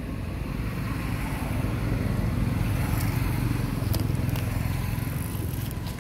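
Low rumble of a motor vehicle's engine passing in the background, swelling about two seconds in and easing off near the end, with a few faint clicks.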